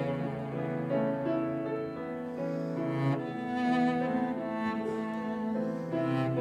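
Cello bowing sustained notes, with other instruments accompanying.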